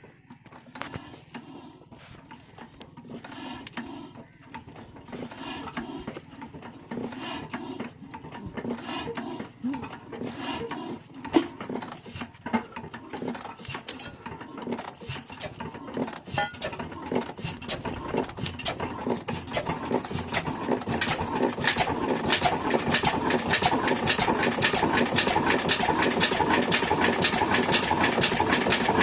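Old stationary diesel oil engine starting up: slow, faint firing knocks pick up speed and grow louder until it settles into a rapid, steady beat near the end.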